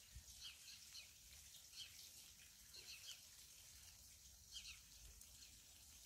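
Faint birdsong: scattered short chirps from small birds, over a quiet background.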